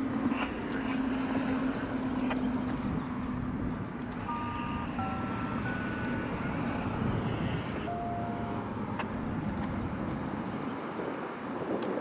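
Road traffic passing: a continuous rumble with a steady engine hum that fades after about four seconds, and a few brief whistle-like tones in the middle.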